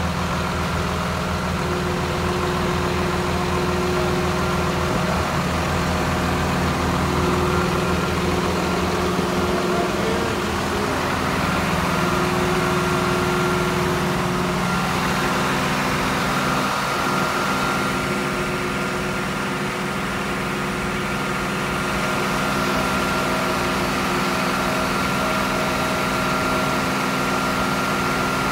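FMC LMD2000 deicing truck's engine running at a steady speed, its note shifting slightly a few times, with a thin steady whine above it that grows stronger in the second half.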